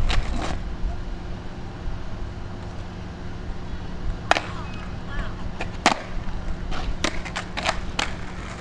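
Skateboard clacking on asphalt as it is flipped and landed during freestyle tricks: sharp knocks of the deck and wheels hitting the street. There is one knock at the start, then after a quiet few seconds come single knocks and a quick run of them near the end, over a low steady hum.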